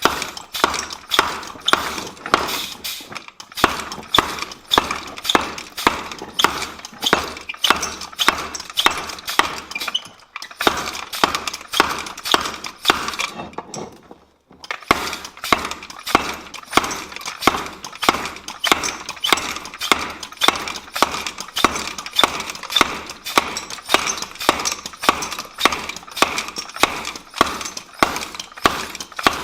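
Treadle hammer striking a large bent piece of dozer steel to straighten it: rapid repeated metal-on-metal blows, about two or three a second, each with a short ring, in runs broken by a few brief pauses.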